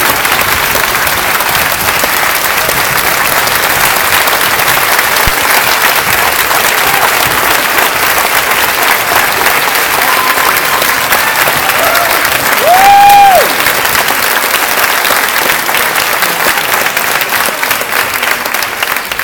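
A theatre audience applauding steadily, with one loud, high-pitched whoop from someone in the crowd about two-thirds of the way through.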